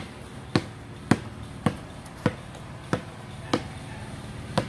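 A basketball being dribbled on concrete: about eight sharp bounces at a steady pace of just under two a second, with a longer gap before the last one near the end.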